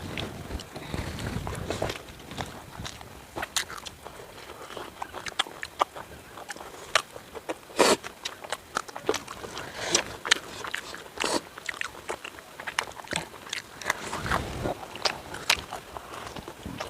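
A person eating tandoori chicken: close-up chewing and biting, with many irregular sharp crunches and clicks.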